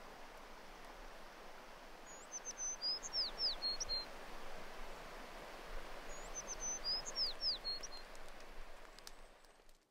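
A songbird singing a short phrase of quick descending whistled notes, twice, about four seconds apart, over a steady outdoor hiss that fades away near the end.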